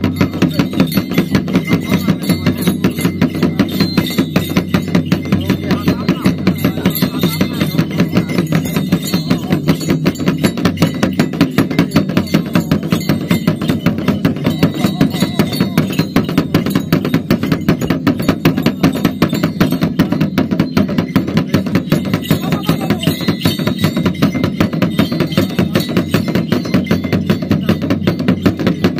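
Ritual percussion keeping a fast, even beat of about three or four strokes a second, with a man's chanting voice over it, accompanying a shaman's dance.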